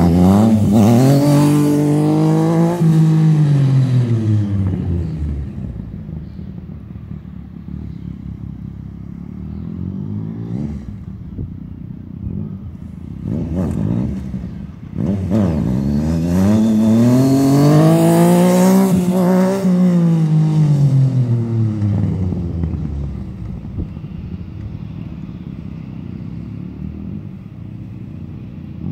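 Yamaha FZ-09's inline three-cylinder engine revving hard twice as the bike accelerates across the lot, the first time on a wheelie. Each time the pitch climbs and then falls away. Between the two runs, and near the end, it runs quieter and farther off.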